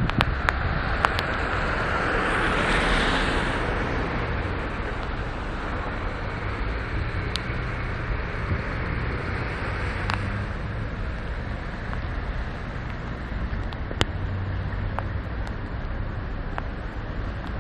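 Outdoor street ambience of road traffic, with wind rumbling on the microphone. About two to four seconds in, a car passes, its noise rising and then falling away. Occasional sharp ticks are heard.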